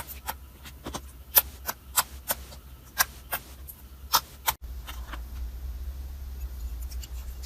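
Slime being squeezed and poked, giving sharp, irregular pops and clicks, about a dozen in the first four and a half seconds. After a sudden cut the pops become fewer and fainter over a steady low hum.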